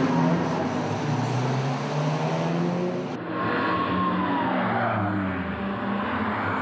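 Subaru Impreza race car's flat-four engine revving as it pulls away down the pit lane, then, about three seconds in, several race car engines revving through a corner, one dropping in pitch as it passes.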